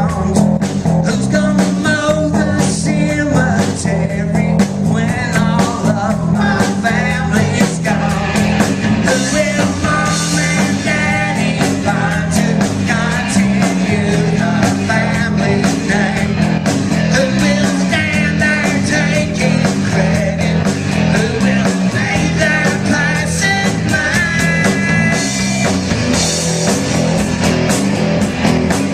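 Live rock band playing: electric guitars over a drum kit keeping a steady beat, with wavering lead guitar lines.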